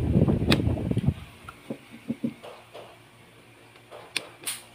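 Steel 1911 pistol parts being handled and fitted together by hand: a low rumble with a sharp click in the first second, then a few soft taps and small metallic clicks near the end.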